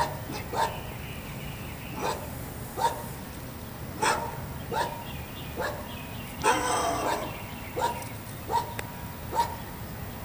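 Dogs barking: a steady string of single barks about one a second, with a longer burst of barking about two-thirds of the way through.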